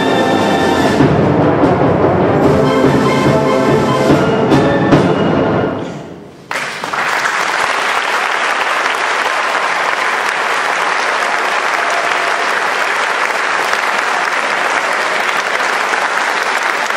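Concert band of brass, woodwinds and percussion playing the final held chord of a piece, which dies away in the hall's reverberation about six seconds in; audience applause then starts suddenly and keeps on steadily.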